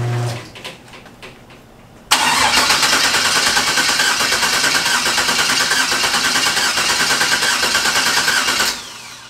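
Starter cranking a car engine steadily for about six and a half seconds without it catching, then stopping abruptly. It is a no-start on a freshly installed Holley Terminator X Max ECU, which the owner puts down to wiring mistakes.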